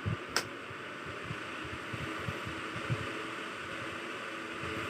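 Crown KYT-30A 12-inch box fan running, a steady rush of blown air with irregular low thumps. A single sharp click comes about half a second in.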